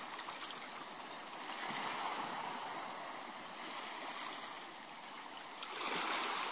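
Steady rushing noise, like water or open air, that swells about two seconds in and again near the end.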